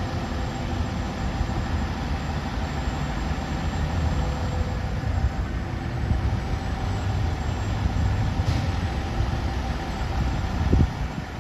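Fire engine's diesel engine idling with a steady low rumble, with a brief louder low thump near the end.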